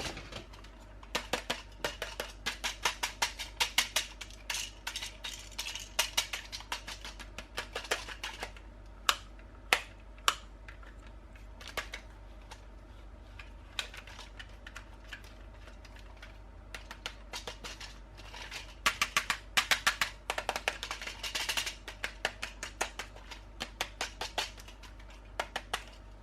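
Toy packaging being handled and opened by hand: runs of sharp plastic clicks and taps, about four or five a second at times, with short spells of rustling.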